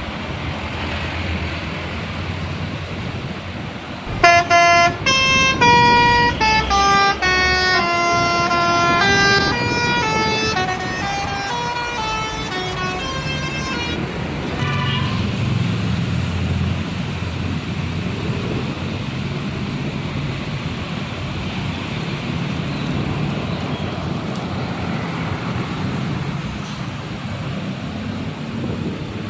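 Intercity bus's telolet basuri horn playing a melody of stepped, held notes for about ten seconds, starting about four seconds in. Road traffic and engine noise run underneath and carry on after the tune ends.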